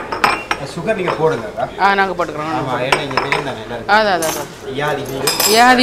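Glasses of chai set down on ceramic saucers, clinking several times, with people talking throughout.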